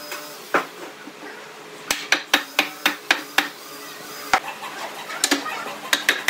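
Sharp wood-on-wood knocks as a wooden frame is struck with a hand-held length of timber: a quick run of about seven knocks between two and three and a half seconds in, with single knocks before and after.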